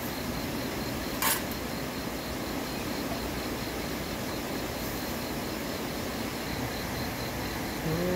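Steady hiss-like background noise with a faint, evenly pulsing high insect call running through it, and one sharp click about a second in.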